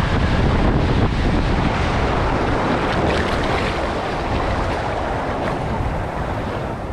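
Water rushing and splashing as an inflatable tube rides down a water slide and out into the runout pool, a steady wash that eases slightly toward the end.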